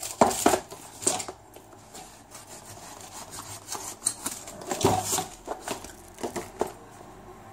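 Cardboard and paper packaging rubbing and scraping as a charger box is unboxed: a paper sleeve slid off a cardboard box and a folding knife cutting at the box's edge. Irregular scrapes and knocks, loudest just after the start and again around five seconds in.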